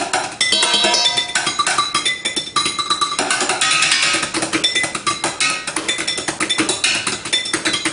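Chopsticks drumming a fast solo on kitchen pots and pans, dense rapid strokes with short metallic rings from the struck pans mixed with duller, damped hits.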